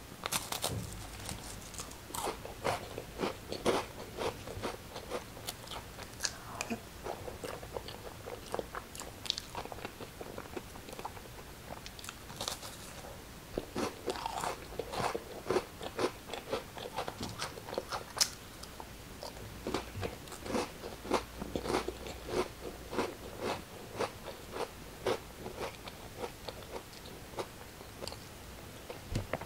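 Crackers being bitten and chewed: a long run of crisp, irregular crunches.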